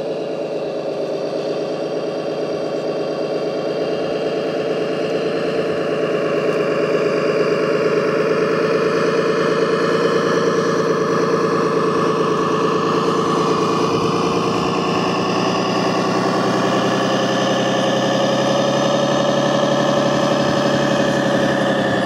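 Truck engine sound from a radio-controlled MAN 8x8 truck hauling a heavy stone load: a steady engine drone that grows louder over the first several seconds, then rises briefly in pitch and falls back near the end.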